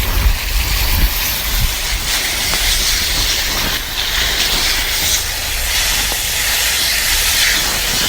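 Garden hose spraying water onto plants: a steady hiss of spray that swells and eases a little, with a low rumble underneath.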